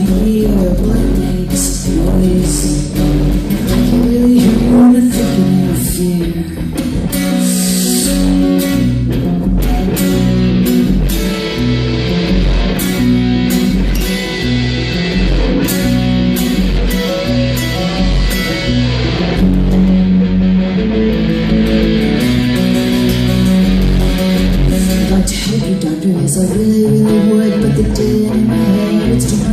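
Live band playing an instrumental passage of a song with no singing: guitar over a repeating low bass line, with regular sharp percussive strokes.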